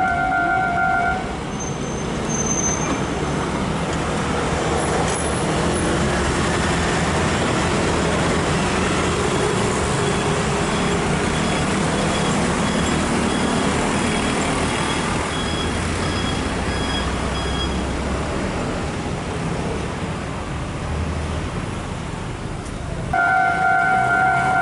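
Level-crossing warning bell ringing as a steady electronic tone. It cuts off about a second in and comes back near the end. In between there is a steady rumble and hiss.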